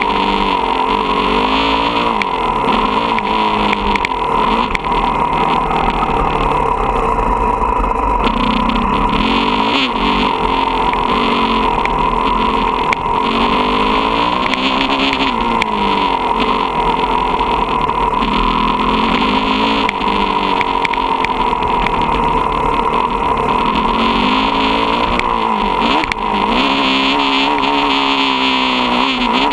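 Motocross dirt bike engine, heard loud and close from a camera on the bike, revving up and falling back over and over as the rider accelerates, shifts and backs off around the track.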